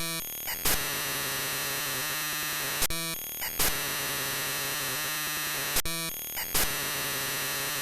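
A harsh electronic outro loop: a dense wash of static-like noise with many held tones, restarting about every three seconds.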